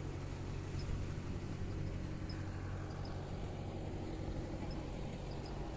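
An engine running steadily at constant speed, a low even hum.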